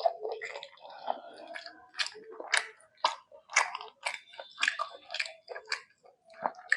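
Close-miked chewing of rice with mutton and egg curry, with irregular sharp wet mouth clicks about once or twice a second.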